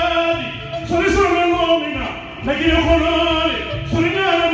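A man sings in the Mande griot style into a microphone, in a strong, high-pitched voice. He delivers three long held phrases, each rising at the start and falling away at the end.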